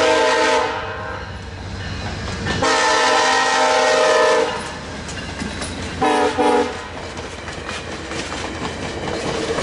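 VIA Rail locomotive 904 (a GE P42DC) sounding its multi-note air horn as a salute while passing: a blast ending just after the start, a long blast about three seconds in, and two short toots about six seconds in. Then the passenger cars roll by with steady rumble and clickety-clack of wheels over rail joints.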